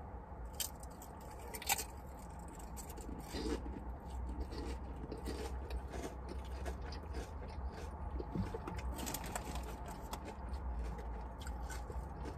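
Close-up chewing of a sandwich stuffed with chips: irregular crunches and wet mouth clicks, over a steady low hum.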